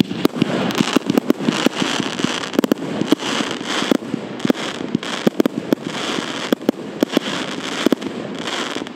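Wolff 'Massive Reload' compound firework battery (144 shots, 25 mm calibre) firing in rapid succession: a dense stream of sharp bangs, several a second, over a steady hiss.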